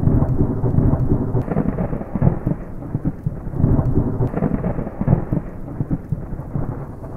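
Thunderstorm sound effect: rumbling thunder over rain, swelling and easing unevenly, muffled with the high end cut off.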